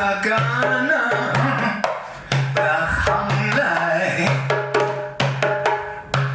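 Live music: hand drums beating a steady rhythm under a melody line.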